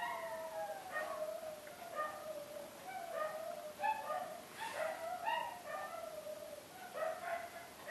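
Dog howling and whining almost without pause, in long wavering calls, with shorter, choppier calls near the end.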